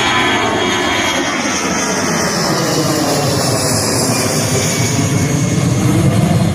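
Jet airliner engines roaring loudly as the aircraft passes close by, with a sweeping, phasing tone and a high fan whine that slides down in pitch; the low rumble grows toward the end.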